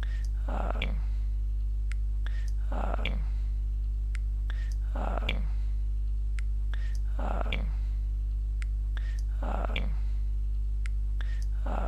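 A steady low hum. Over it, a soft falling swish repeats about every two seconds, with faint scattered ticks.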